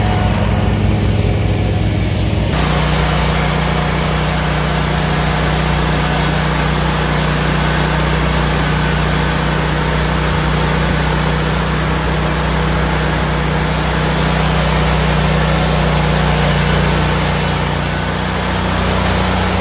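Engine running steadily. The sound changes abruptly about two and a half seconds in, then holds steady to a lower, even hum.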